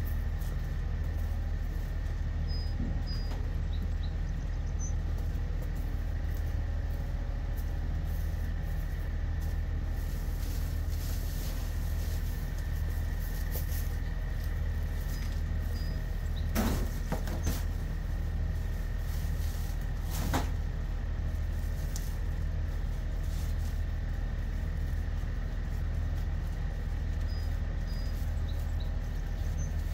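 Steady low mechanical hum with a faint high steady whine. Two brief knocks come a few seconds apart past the middle.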